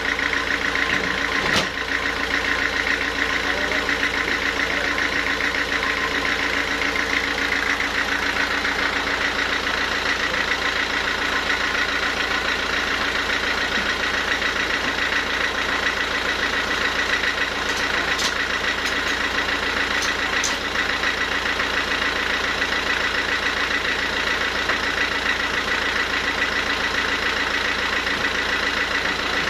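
Sawmill machinery running steadily, with a sharp click about a second and a half in and a few light ticks near the end.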